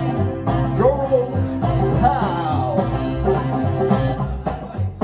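A live instrumental passage: a five-string banjo picks a melody over a plucked upright double bass, some notes gliding in pitch.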